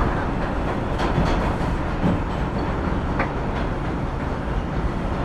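New York City subway train (a Bronx-bound 5 express) running at speed between stations, heard from inside the car: a steady, loud rumble of wheels and car body with a few sharp clicks as the wheels pass over rail joints.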